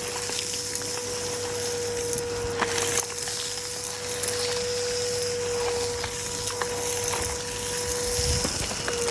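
Numatic Bertie vacuum cleaner's motor running steadily with a high hiss of suction, as it hoovers up a load of debris; scattered clicks and rattles as bits go up the hose. The motor's tone dips briefly about eight and a half seconds in.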